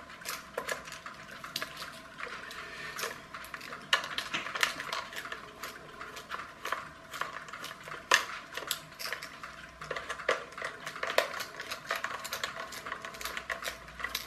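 Small precision screwdriver unscrewing screws from the plastic base of a clockwork toy car: irregular light clicks and scrapes of the metal bit on the screw heads, along with the plastic body being handled.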